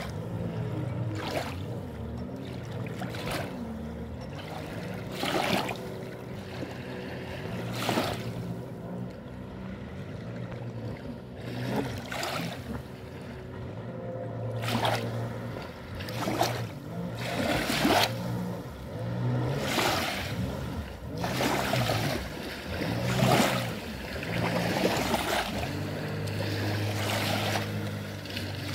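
Jet ski engine running at speed out on the water, its drone rising and falling in pitch as the craft turns, broken by brief whooshing noises every second or two.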